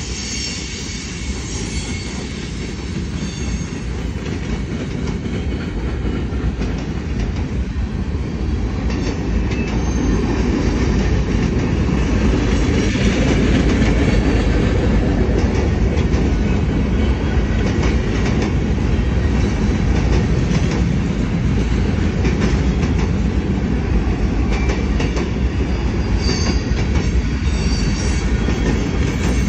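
A long freight train's cars rolling past: a steady rumble of steel wheels on rail with clicking from the rail joints. It grows louder over the first dozen seconds, then holds.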